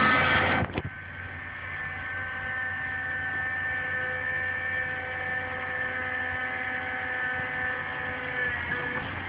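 Caterpillar 225LC excavator with its 3208 V8 diesel running at a steady speed, a steady whining hum of several even tones. Just under a second in, a louder, wavering sound drops away abruptly.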